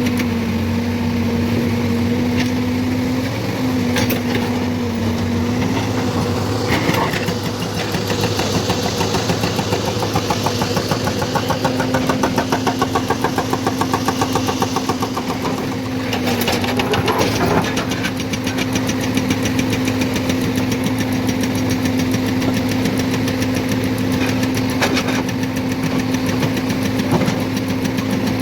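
Diesel engine of a hydraulic excavator running steadily, its pitch dipping briefly a few times. A fast regular throb runs for several seconds in the middle, and there are a few sharp knocks.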